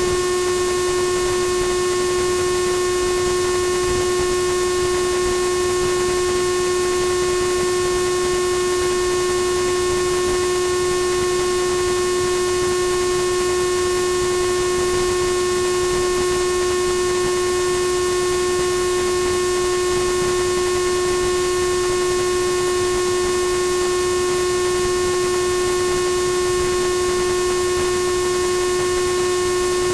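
Steady electrical buzz at one unchanging pitch and level, over a constant hiss.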